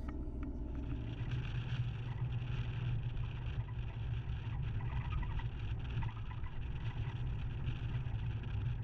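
Vehicle driving at road speed on a sealed road, heard from a camera mounted outside on the bonnet: a steady low rumble of engine, tyres and wind.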